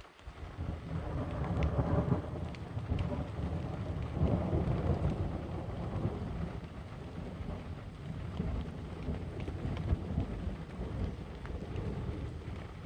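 Thunder breaks out suddenly and rolls on as a long, low rumble, loudest in the first few seconds, while rain falls.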